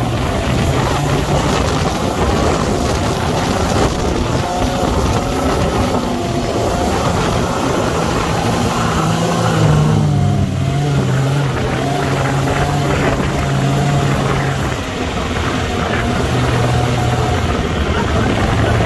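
Sandrail engine running under load, its pitch rising and falling as the driver works the throttle, climbing noticeably about nine seconds in.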